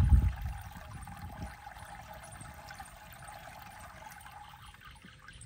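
Liquid pouring in a thin, steady trickle from a plastic bottle into the strainer of a backpack sprayer's tank, after a brief low thump at the start.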